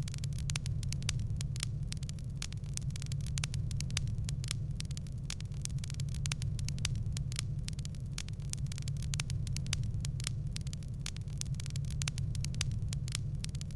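Wood fire crackling in a fireplace: many sharp snaps and pops at quick, irregular intervals over a steady low rumble.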